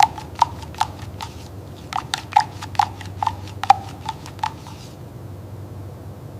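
A string of about a dozen sharp, irregular taps, each with a short ring, spread over the first four and a half seconds, then a faint steady hum.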